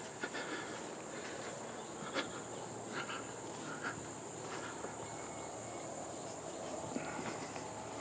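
Insects giving a steady, high-pitched drone, with a few soft footsteps or rustles on the grassy path.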